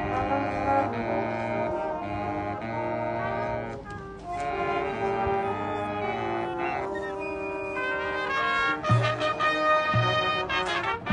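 Marching band brass section playing held chords, with a brief break about four seconds in. Drum hits and low bass-drum thuds come in near the end.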